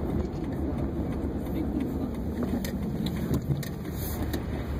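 Car driving slowly on wet, salted road, heard from inside the cabin: a steady low rumble of engine and tyres, with a few light clicks.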